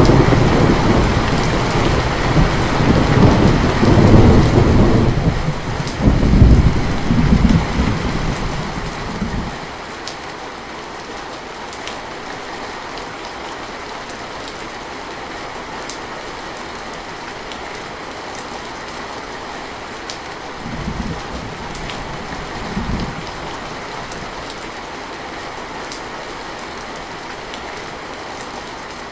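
Steady rain falling, with scattered drop ticks, and a long rolling rumble of thunder that dies away about ten seconds in. After that the rain continues alone apart from two short, fainter rumbles of thunder about two-thirds of the way through.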